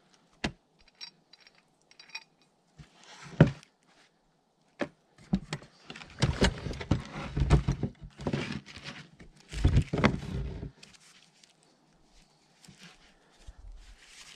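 Clunks, knocks and rattles of a chainsaw and its winch attachment being handled and fitted together on a plywood box. There is one sharp knock a few seconds in, then a dense run of rattling and knocking for several seconds, which dies away near the end. The chainsaw is not running.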